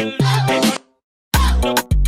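A song with a steady bass beat, which drops out completely for about half a second midway and comes back with heavy deep bass.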